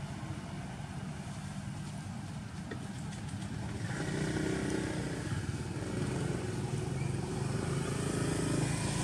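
A motor vehicle engine running steadily, a low rumble that grows louder and fuller about four seconds in.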